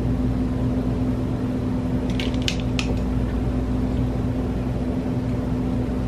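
Steady mechanical hum with a low, unchanging tone. A few faint clicks come a little after two seconds in.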